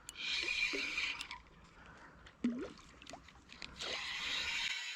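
Seawater splashing and sloshing around a fish being fought at close quarters, in two bursts with a few sharp clicks. There is a short low vocal sound from the angler in between.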